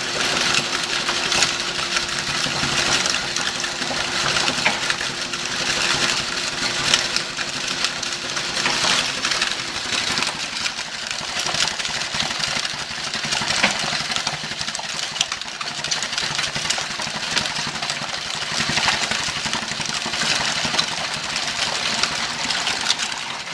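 Alfran continuous mortar mixer running, its motor and right-angle gearbox turning the mixing shaft as a dry 75/25 concrete-sand and Portland-cement mix is fed through the chamber with foam and water injected, giving a dense gritty rattle of many small clicks. A steady hum underneath stops about nine seconds in.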